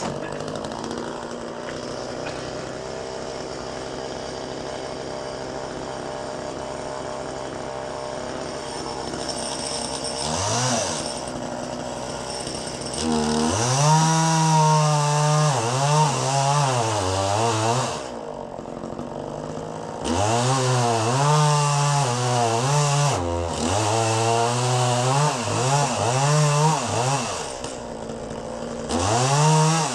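Chainsaw running steadily at idle, revving up about ten seconds in, then cutting into the dead ash wood in two long stretches with its pitch rising and falling under load. It drops back briefly between the cuts and revs again near the end.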